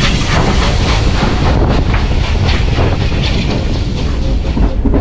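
Heritage steam train running on the rails, with wheels clicking over the rail joints and a steady low rumble as a steam locomotive and tender pass close alongside. A hiss of steam dies away in the first second or two.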